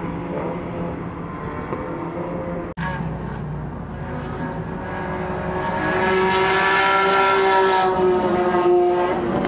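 A track car's engine running hard at high revs. The note breaks off for an instant about a third of the way in. Then it grows louder and climbs in pitch as the car accelerates, loudest in the last few seconds, with the pitch dropping near the end.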